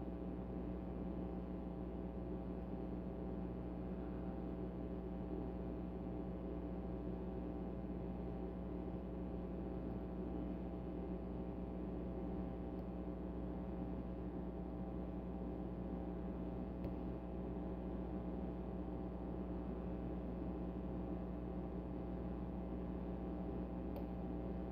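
Steady background hum made of several steady tones. A few faint, sparse ticks from a lock pick working the pins of a pin-tumbler rim cylinder sound through it.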